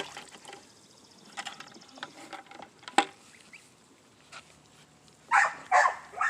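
Faint small sounds and one sharp click about halfway, then three short, loud animal calls in quick succession near the end.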